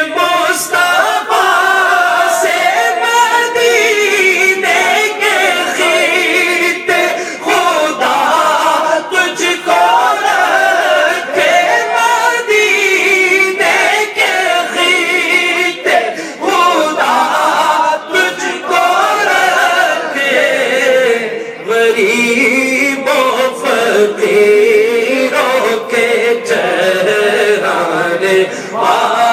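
A man singing an Urdu naat unaccompanied into a handheld microphone, with long, wavering held notes and ornamented runs between short breaths.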